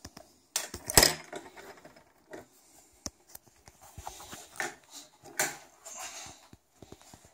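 Irregular clicks and knocks of felt-tip markers and their plastic caps being picked up and set down on a hard tabletop, with one loud knock about a second in.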